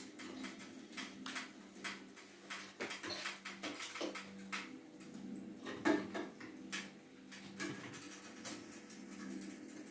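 A utensil scraping and tapping in a frying pan as eggs are stirred and fried, with one louder knock about six seconds in. A faint sizzle and a steady low hum run underneath.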